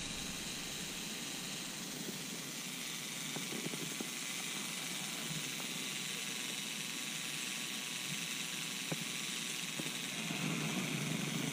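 Steady, even hiss-like background noise with no distinct events.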